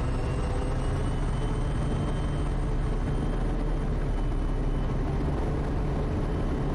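Quest Kodiak's PT6A turboprop engine and propeller at takeoff power during the takeoff roll: a steady, heavy engine-and-propeller noise with a faint high turbine whine that rises slightly in pitch over the first few seconds.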